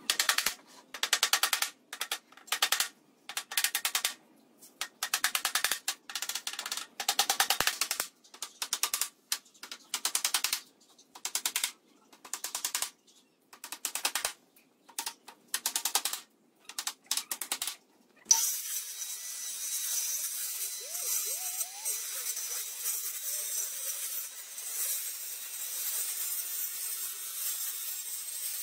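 A long run of short, rasping strokes on the wooden pallet's boards, each about half a second long with brief gaps between them. About eighteen seconds in, a corded circular saw starts with a sudden jolt and runs steadily as it cuts through the pallet.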